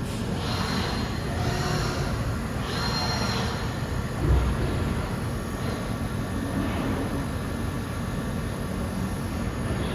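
Micron VCP 710 vertical CNC machining centre running: a steady mechanical hum with short hissing bursts every second or so early on, and a single thump about four seconds in.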